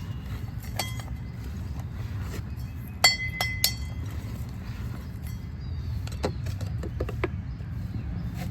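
Hard objects clinking with a short ringing tone: one clink about a second in, then three quick ones about three seconds in, followed by a few softer knocks. A steady low hum runs underneath.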